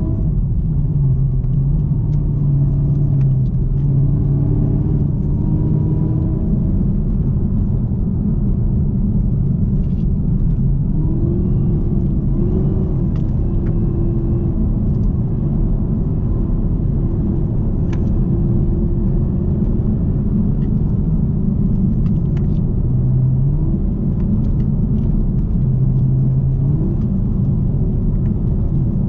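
2018 Camaro ZL1's supercharged 6.2-litre V8 running under light load at cruising speed, with a steady low rumble from the engine and road. The engine note rises and falls a little as the revs change, without any hard acceleration.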